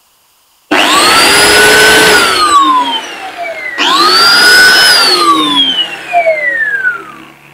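Electric angle grinder of about 12,000 RPM driving a snail-shell blower adapter, switched on twice in short bursts. Each time the whine rises quickly as the impeller spins up, holds for about a second with a rush of air from the nozzle, then falls away as it coasts down.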